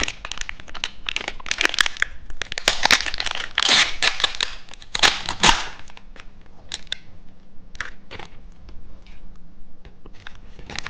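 Plastic snack wrapper crinkling and tearing as it is opened by hand. The crinkling is dense for about the first six seconds, then thins to scattered light crackles.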